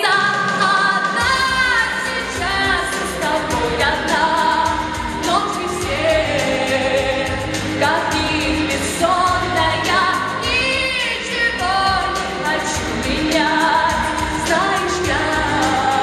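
A young woman singing a pop song solo into a handheld microphone, her voice held in long notes that waver, over pop music accompaniment. A bass line comes in about a second in.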